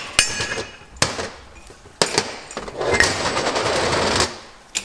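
Sharp metal blows on a differential carrier as the old ring gear is knocked free, then a rapid rattling burst lasting about a second and a half.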